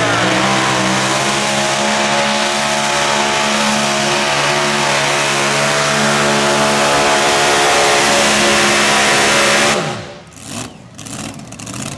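Mini modified pulling tractor's supercharged engine running flat out as it drags the sled down the track, its pitch climbing in the first second and then holding high and steady. About ten seconds in it cuts off abruptly as the pull ends, leaving a few faint clicks.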